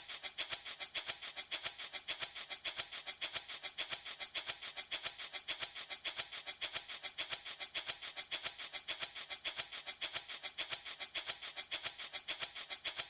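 A handmade baby rattle shaken in a steady, even rhythm of quick bright rattling strokes.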